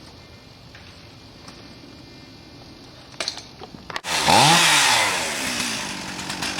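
A few faint clicks, then a chainsaw comes in suddenly about four seconds in, its pitch rising as it revs up, and runs on at high speed.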